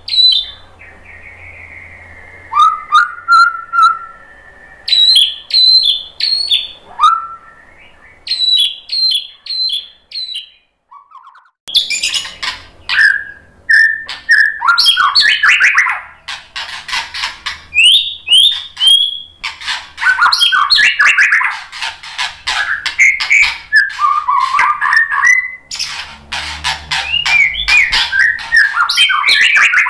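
White-rumped shama singing: sharp clicking call notes and short whistles at first, a brief pause about ten seconds in, then a loud, continuous run of varied whistled phrases.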